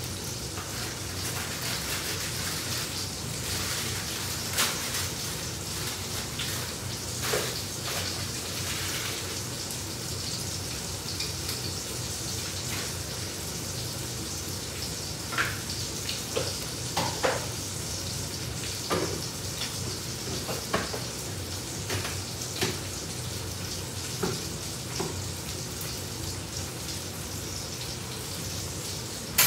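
Food sizzling steadily in a hot frying pan, with scattered light clinks and knocks of kitchen utensils.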